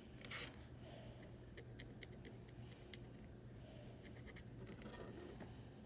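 Faint scratching and dabbing of a furniture touch-up marker's fine tip on a hard surface, with scattered small ticks.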